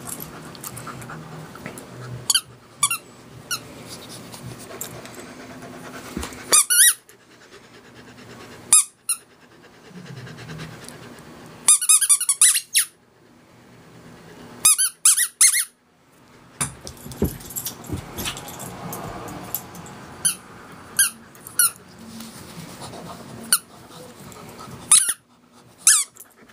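A puppy chewing a squeaky rubber ball: short runs of high squeaks every few seconds, with quieter stretches in between.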